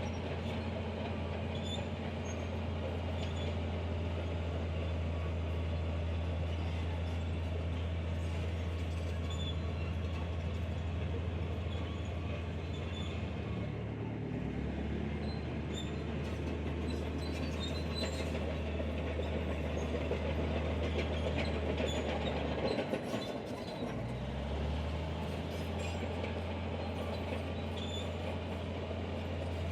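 Diesel engine of a crawler bulldozer running under load: a steady low drone that eases off briefly about halfway through and again a few seconds later. Over it run scattered small metallic clinks and squeaks of the steel tracks.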